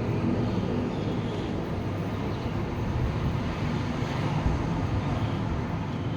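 Strong storm wind gusting, heard as a low rumbling noise that swells a little about two-thirds of the way through.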